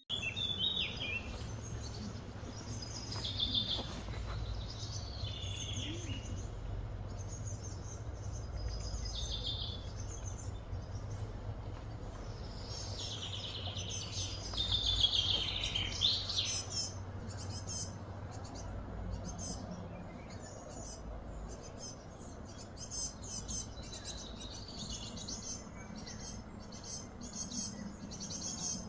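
Wild birds chirping and calling, with a few longer gliding phrases and bouts of rapid short chirps, over a steady low background rumble.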